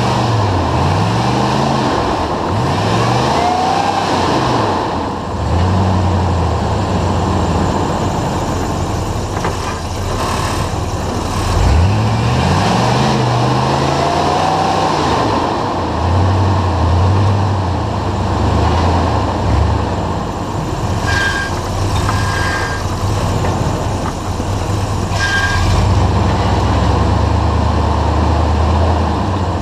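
Off-road vehicle's engine revving up and dropping back again and again, in short pulls under load as it crawls over rock.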